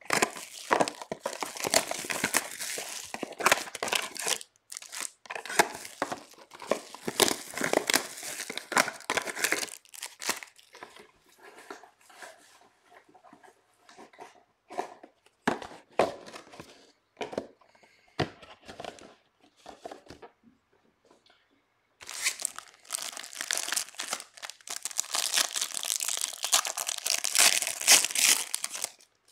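Trading card pack wrappers being crinkled and torn open by hand, in dense rustling bursts. In the middle the rustle thins out to scattered short ticks and rubs before another wrapper is torn open near the end.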